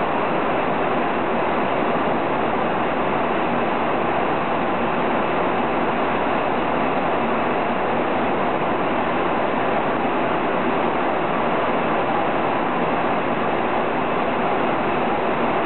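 Jet airliner cabin noise at cruise: a steady, even rush of engine and airflow noise with no change.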